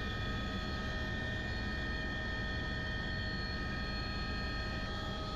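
Helicopter turbine and rotor noise in flight, heard from aboard: a steady low drone with several constant high whining tones over it.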